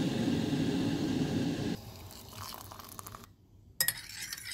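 Loud handling noise for nearly two seconds, then fainter rustling, then a sharp clink of glass near the end.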